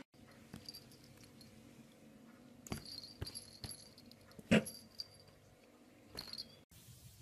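Cats tussling: a handful of short, sudden sounds with one brief cry, the loudest, about four and a half seconds in.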